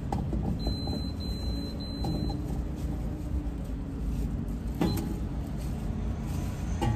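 Gas station fuel pump beeping three times in a row, short high beeps about a second in, over a steady low rumble of vehicles. A sharp knock comes near five seconds and another near the end.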